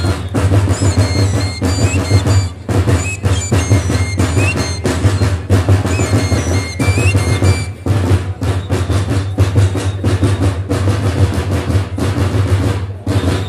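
Big drums of a Romanian bear-dance troupe beaten fast and continuously over a heavy low boom, with high whistle-like notes sounding above, the drumming dropping out briefly three times.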